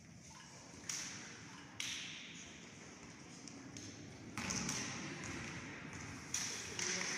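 A few sharp impacts, about four spread over several seconds, each ringing out in the echo of a large sports hall, with low voices murmuring underneath in the second half.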